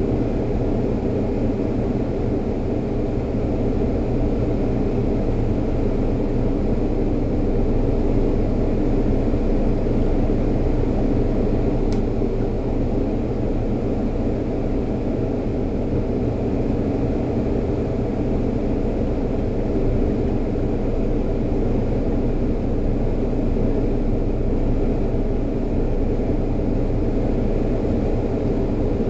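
Steady mechanical drone with a low, even hum that does not change, typical of kitchen ventilation or refrigeration machinery; a single faint tick sounds about halfway through.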